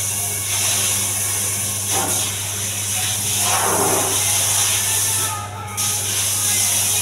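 Water hissing from a handheld bidet sprayer as it rinses a wet ceramic-tiled floor, stopping briefly about five and a half seconds in.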